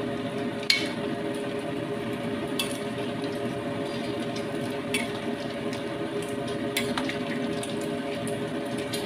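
Noodles, clams and quail eggs cooking in water in a stainless steel wok, stirred with a metal ladle: steady bubbling and sloshing over a low hum, with four sharp clinks of the ladle against the pan, the first about a second in and the loudest.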